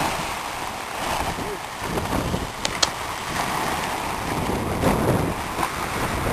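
Outdoor seaside noise of wind and sea, with faint voices and two sharp clicks a little before halfway.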